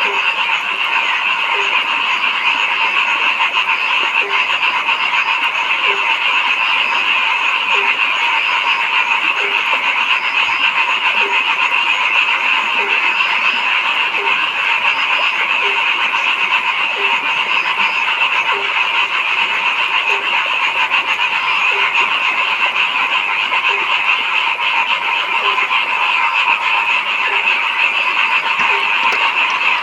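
A dense chorus of frogs calling steadily, with one lower-pitched frog croaking singly at a regular pace, about every one and a half seconds.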